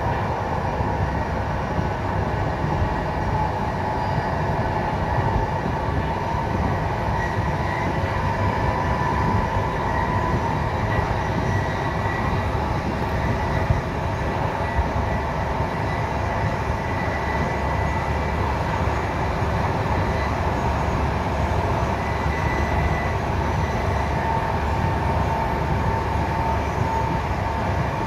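Intercity passenger train running at speed on electrified main line, heard from on board: a steady deep rumble of wheels on rail with a faint whine of running gear, and one brief knock about halfway through.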